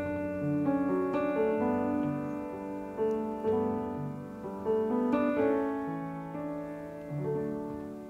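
Slow, gentle solo piano music: soft chords and single notes, each struck and left to ring. It thins out near the end after a last chord.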